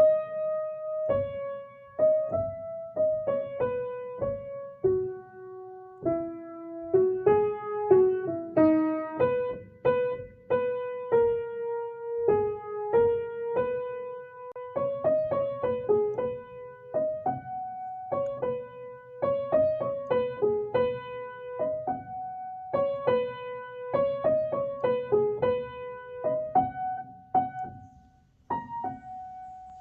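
Soft background piano music: a slow melody of single notes over a gentle lower accompaniment.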